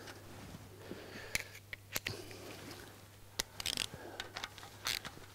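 Scattered small metallic clicks and taps of a bolt with a new washer and a nut driver being fitted to the sump's oil filter housing, with a short flurry of clicks a little before the four-second mark. A low steady hum sits underneath.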